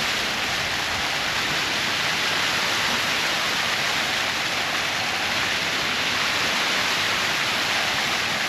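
Public water fountain jets spraying and splashing down, a steady unbroken rush of falling water.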